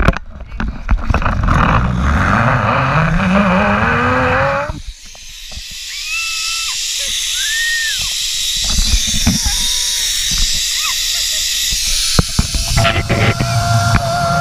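Zipline trolley pulleys running along the steel cable: a whine that climbs in pitch as the riders pick up speed, under loud wind rushing over the camera microphone.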